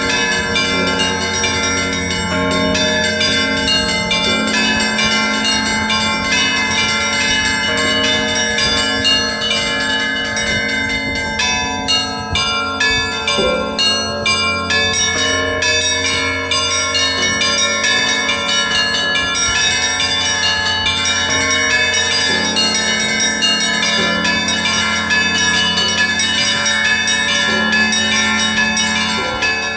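Russian Orthodox monastery bells rung together in a full peal: many smaller, higher bells struck in quick, overlapping rhythmic patterns over the sustained low hum of larger bells.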